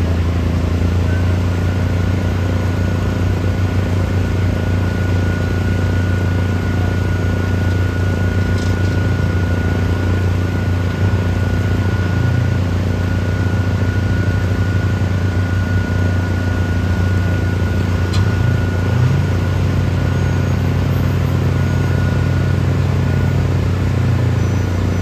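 Concrete pump truck's engine running at a steady speed: a constant low drone with a faint high whine over it.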